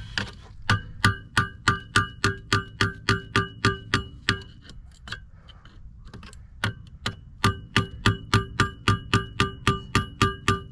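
A hammer striking metal in quick, even blows, about three to four a second, each ringing with the same clang; the blows pause for a couple of seconds midway, then resume.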